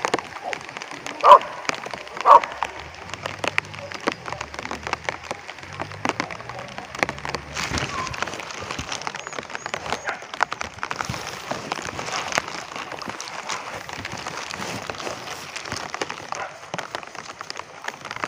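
A hunting dog barks twice near the start, the barks about a second apart. A steady patter of rain with scattered ticks runs under it.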